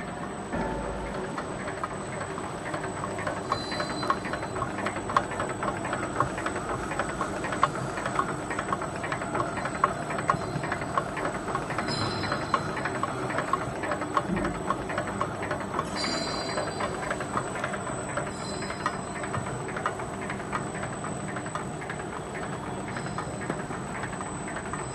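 Rotary bouillon-cube pressing machine running, giving a fast, steady clatter of clicks as it presses and ejects the cubes.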